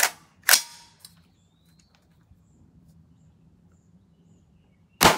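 A .300 Blackout AR-style rifle firing supersonic rounds: two sharp reports right at the start, about half a second apart, then a single report near the end that rings out as it fades.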